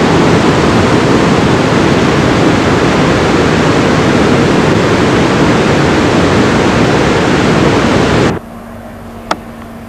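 Whitewater river rushing through a rocky gorge below: a loud, steady wash of water noise. It cuts off suddenly near the end, leaving a faint steady hum and a single click.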